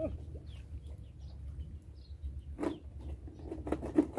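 Open-air ambience: a steady low wind rumble on the microphone, faint bird chirps, and a few short rustling noises, with one sharp knock about four seconds in.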